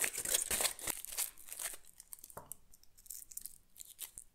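Aluminium foil crinkling and crumpling as it is wrapped and pressed by hand around wooden sticks. Dense crackling for about the first two seconds, then sparse, fainter crinkles.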